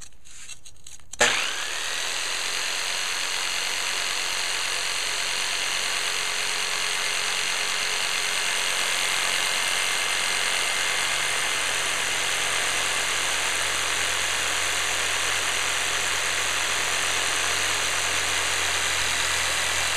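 Jigsaw fitted with a diamond grit blade, switched on about a second in and then running steadily as it cuts a notch in ceramic tile.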